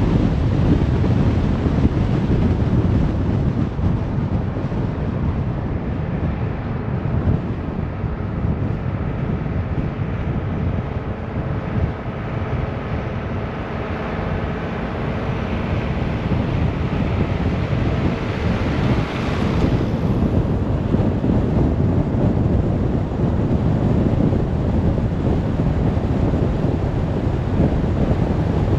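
Car driving along a motorway: a steady rumble of tyre and wind noise. Faint engine tones come through in the middle, and a brief hiss swells and fades about two-thirds of the way in.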